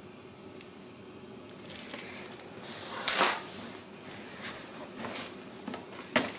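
Groceries being shifted about in a plastic storage bin: rustling packaging and light knocks of cans and containers, the loudest knock about three seconds in, after a second or so of faint room hum.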